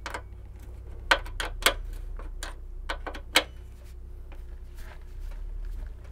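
Irregular sharp metallic clicks of a 12 mm ratcheting gear wrench tightening the nut on a hood shock, a few clicks a second, with three louder ones in the first half.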